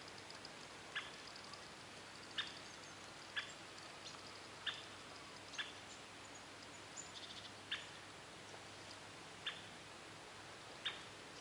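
A bird repeating a short, sharp call note about once every one to two seconds, with faint high trilling in the background.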